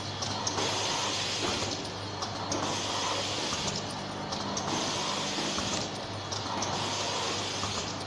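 Automatic vial filling, stoppering and crimp-capping machine running: a steady mechanical hum with a hiss that swells and fades about every two seconds, and a few light clicks.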